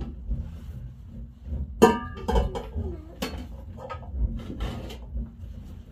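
Metal pots, a lid and dishes clinking and knocking as they are handled and set down, a string of separate knocks with one loud ringing clank about two seconds in.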